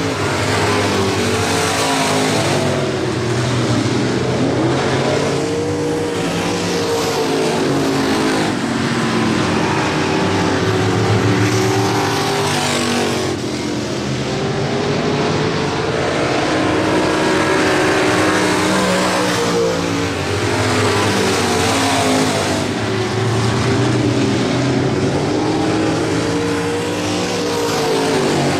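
A pack of street stock race cars' V8 engines running hard around a dirt oval. The engine note climbs and falls every few seconds as the cars power down the straights, lift for the turns and pass by.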